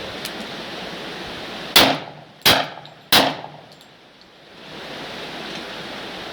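Three gunshots in quick succession, about two-thirds of a second apart, each with a short echoing tail, over a steady hiss.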